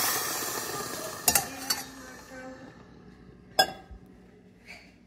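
Steam hiss from a Breville espresso machine's steam wand tailing off as the steam is shut off, its cleaned tip working again. Then a few metallic clinks of a stainless steel milk pitcher being handled, the loudest a single sharp knock about three and a half seconds in as it is set down on a stone counter.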